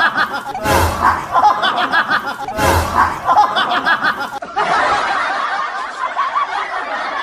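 Laughter from several people at once, with two loud thumps in the first half.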